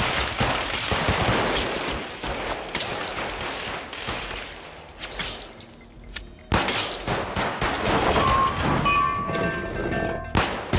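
Rapid gunfire, many shots close together, that thins out to a brief lull a little past halfway. A sudden loud shot then starts a second dense run of shots.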